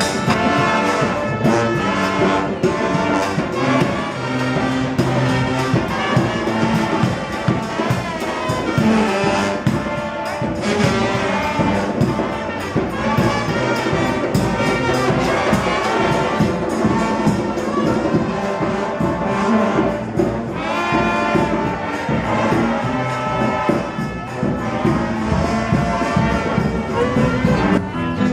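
Brass band playing, with trumpet and trombone carrying the tune over drums keeping a steady beat.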